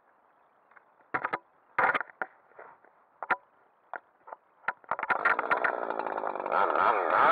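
A few short, scattered rustling knocks, then about five seconds in a Husqvarna 375 XP two-stroke chainsaw starts and keeps running, getting louder toward the end.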